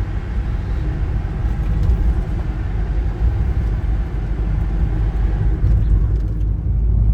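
Steady low rumble of road and engine noise from a vehicle being driven, heard from inside the cabin. The higher hiss thins out near the end.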